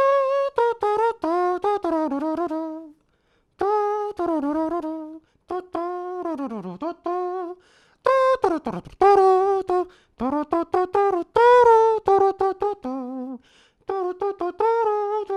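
A man's voice imitating a brass horn, playing a melody in short, separated notes with vibrato. Twice the pitch slides down, about six and nine seconds in.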